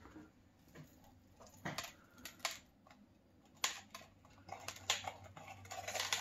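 Light, scattered clicks and taps of a plastic cup being shaken and knocked over a plastic tub as flakes of grown crystal fall into it; the taps come more often near the end.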